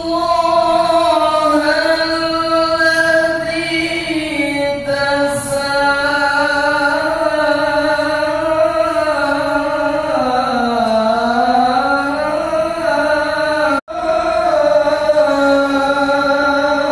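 Melodic Quran recitation (tilawah) by a single voice, holding long notes that glide up and down, with a slow dip in pitch about ten seconds in. The sound cuts out for a moment near the end.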